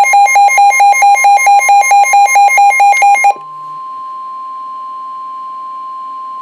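NOAA Weather Radio's 1050 Hz warning alarm tone, a steady high tone that signals a warning message is coming. For the first three seconds or so the Midland WR120B weather radio's own loud, rapid alert beeping sounds over it, then stops suddenly, leaving the steady tone alone.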